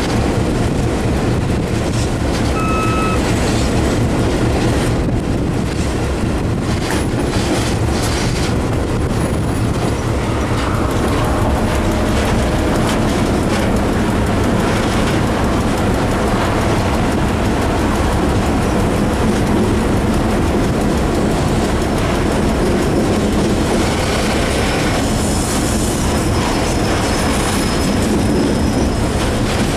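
Series 661 (EMD G16) diesel locomotive under way, heard from its cab: the two-stroke V16 diesel engine running steadily under the wheels rolling over the rail joints. A short beep sounds about three seconds in, and a thin wheel squeal comes in over the last several seconds.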